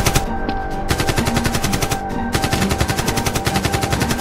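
Dubbed-in automatic gunfire sound effect: a short burst, a pause of about half a second, then sustained rapid fire, many shots a second.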